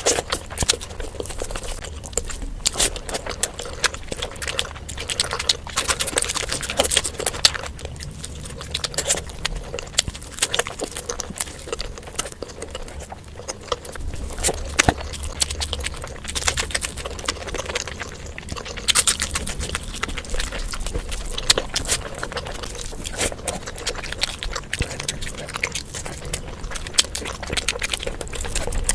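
Close-miked ASMR eating sounds of fish curry being eaten: wet chewing and mouth smacking, a dense, irregular run of clicks and squelches.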